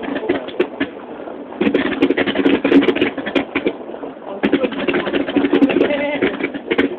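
Crowd of spectators talking over one another, with many short sharp clicks and pops through it.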